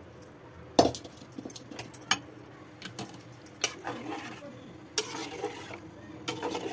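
A metal spoon clinking and scraping against an aluminium pot while chickpea curry is stirred and mashed, in a series of irregular clinks with the sharpest about a second in.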